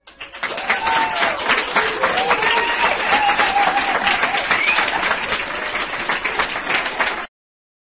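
Audience applauding, with a few voices calling out over the clapping; it starts suddenly and cuts off abruptly near the end.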